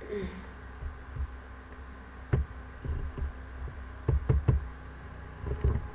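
A few dull knocks and taps, one about two seconds in and a quick cluster of three around four seconds in, over a steady low electrical hum.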